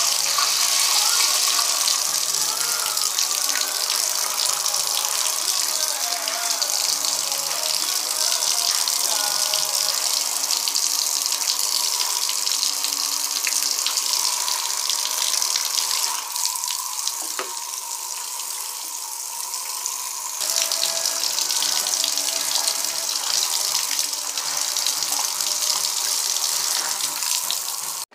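Shower head spraying water onto wet fabric, a steady hissing spray that rinses fresh screen-printing ink out of the cloth. The spray eases off for a few seconds past the middle, then comes back at full strength.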